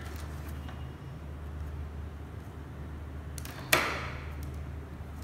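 Faint clicks of wire and tool handling over a steady low hum, with one sharp snip about three and a half seconds in as hand wire cutters cut a hookup wire.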